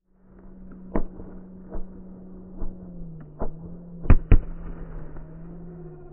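Fireworks shells bursting: about six sharp bangs spaced roughly a second apart, the two loudest close together about four seconds in, over a steady low hum.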